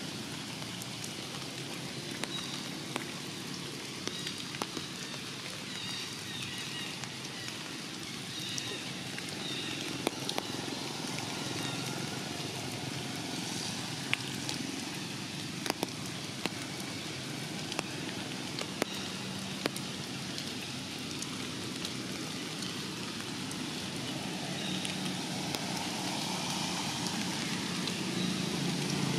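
Steady rain falling on forest leaves, with scattered sharp drips and taps as drops hit leaves and branches. A low rumble grows louder near the end.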